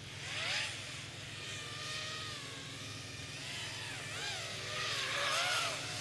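FPV racing quadcopters flying, the whine of their motors and propellers rising and falling in pitch as the throttle changes, over a steady low hum.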